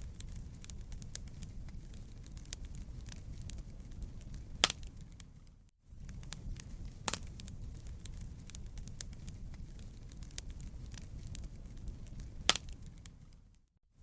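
Wood fire crackling in a fireplace: many small clicks and a few louder sharp pops over a steady low rumble. The sound drops out briefly twice, near the middle and at the end.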